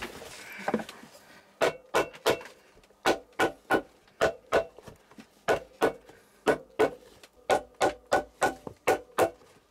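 Cobbler's hammer striking a leather shoe held on an iron shoe last, quick blows of about three a second, often in groups of three, each with a short metallic ring. Faint handling rustle comes before the hammering starts, about one and a half seconds in.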